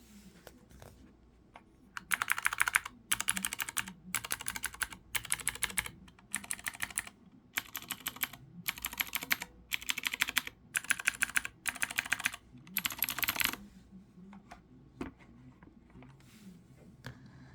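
Leopold FC900R mechanical keyboard with clicky blue switches and PBT keycaps being typed on in quick runs of keystrokes, about ten bursts of rapid clicking with short pauses between them. Near the end only a few scattered single keystrokes remain.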